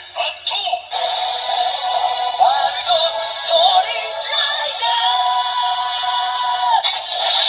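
The Suiseiken Nagare Wonder Ride Book toy's small speaker playing a sung musical clip. It sounds thin, with no bass.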